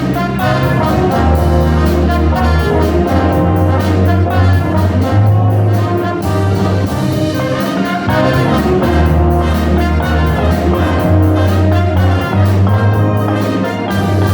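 A band playing a tune led by brass, with trumpets and trombones over low bass notes and a steady drum beat.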